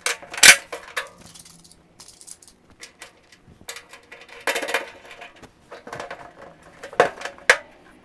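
Sharp metallic clicks and clinks from a galvanized steel trash can rim being worked with a hand sheet-metal hole punch. The loudest comes about half a second in, with a cluster in the middle and two more close together near the end.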